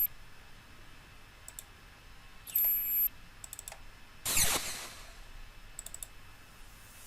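Short sound-effect samples previewed one after another, with mouse clicks between them: a brief electronic tone about two and a half seconds in, then a louder noisy whoosh falling in pitch a little past the middle.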